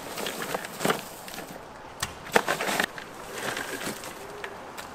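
Irregular knocks and clatter, loudest in a quick cluster of strikes between about two and three seconds in.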